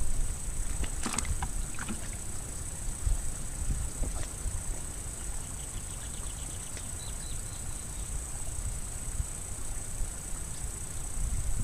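Outdoor ambience: a steady high insect drone over a low rumble of wind on the microphone. A couple of light knocks come in the first two seconds, and a short run of quick, faint chirps a little past the middle.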